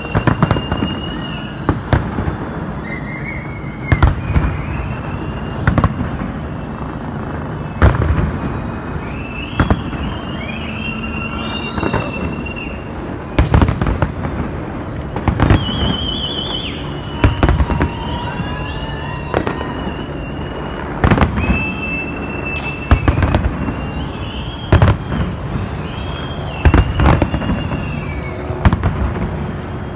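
Fireworks display: sharp bangs every second or two over a steady low rumble of more distant explosions, with short high whistles in between.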